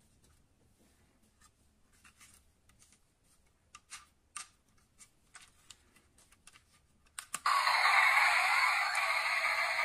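Light plastic clicks and taps as a plastic toy helicopter is picked up and handled. About seven seconds in, after a click, a loud steady hissing whir starts, with almost no low end.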